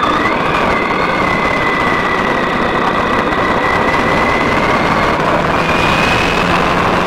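Riding noise from a motorcycle on the move: a steady engine drone under loud wind rush on a handlebar-mounted camera, with a thin whine that shifts pitch a little about half a second in and rises slightly near the end.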